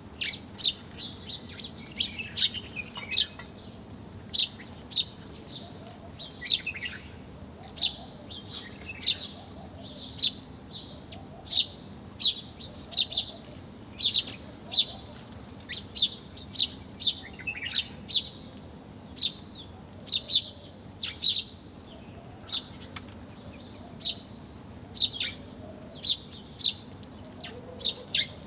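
Small birds chirping: short, sharp, high chirps repeated about once or twice a second.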